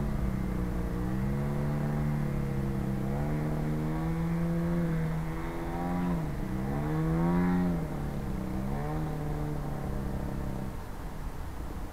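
Engine of a 40% scale Sbach model aerobatic plane in flight, its pitch rising and falling as the throttle and the plane's distance change. It is loudest about seven seconds in, after a quick drop and climb in pitch, and fades away near the end.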